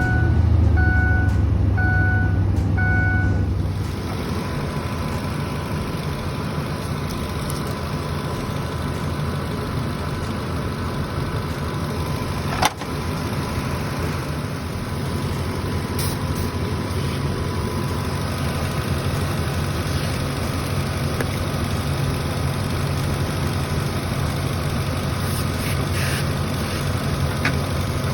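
Ford F-250 engine running just after starting on a newly replaced battery. It runs at a raised idle for the first few seconds, then settles to a steady idle. A dashboard warning chime repeats about every 0.7 s until the revs drop.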